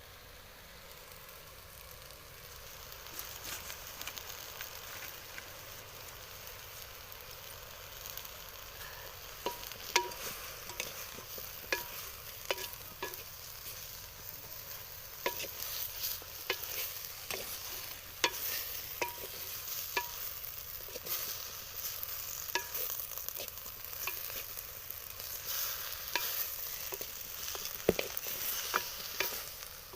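Vegetables frying and sizzling in a pan, with a spatula stirring and knocking against the pan in sharp, irregular clicks from about ten seconds in.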